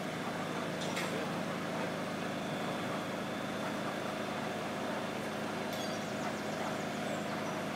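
Mobile crane's diesel engine running steadily while it holds a large Archimedean screw on its hook, with a couple of faint clicks about a second in and near the end.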